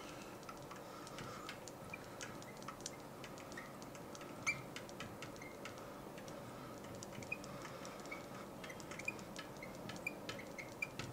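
Marker pen writing on a glass board: faint scattered squeaks and light ticks as the letters are drawn, over a low steady room hiss.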